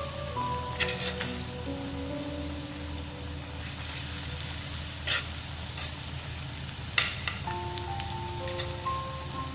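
Steady sizzling hiss of food cooking in a pan on the stove, with three sharp clicks, the loudest about five and seven seconds in. Soft instrumental background music plays over it.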